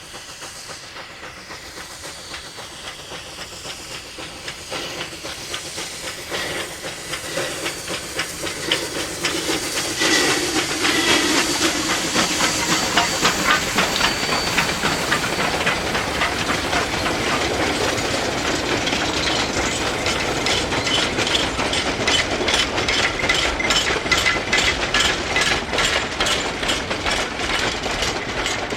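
Narrow-gauge 2-8-0 steam locomotive working a freight train past, with steam hissing and exhaust growing louder over the first ten seconds as it approaches. It then holds steady with a rapid, even clatter of wheels and rods.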